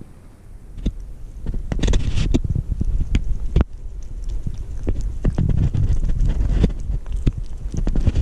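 Kitten eating wet cat food close to the microphone: irregular wet smacks and clicks of chewing and lapping, several a second, over a low rumble.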